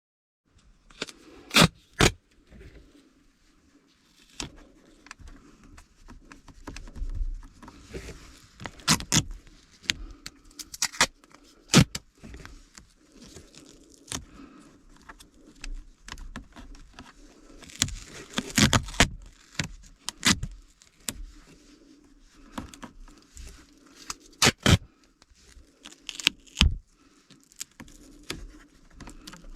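Plastic clicks, snaps and scrapes of hands working the dashboard air-conditioning panel of a Honda N-BOX loose from its clips. The sharp clicks come irregularly, with a few louder snaps among them, over a faint steady hum.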